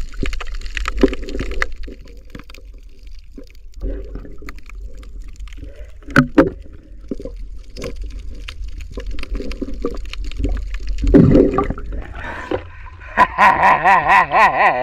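Muffled underwater water noise around a diver's camera: sloshing and gurgling with a low rumble and scattered clicks. About eleven seconds in, a louder rush of water as the camera comes to the surface, then a loud wavering, warbling pitched sound near the end.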